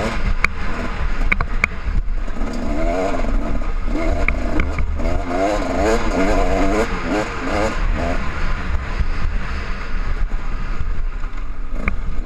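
KTM two-stroke enduro motorcycle engine, its revs rising and falling quickly under load on a rocky uphill trail, heard from a helmet-mounted camera. A steady low wind rumble runs underneath, with a few sharp clicks of stones.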